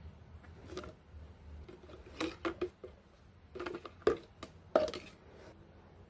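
Handling noises from unpacking a parcel of tableware: packaging rustling with short knocks and clicks in a few clusters, the sharpest a little after the middle.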